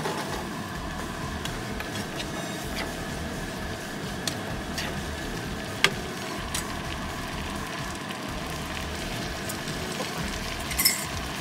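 Shrimp and vegetables simmering and bubbling in sauce in a frying pan, with a spatula stirring and now and then tapping against the pan. The sharpest tap comes about six seconds in, and a few more come near the end.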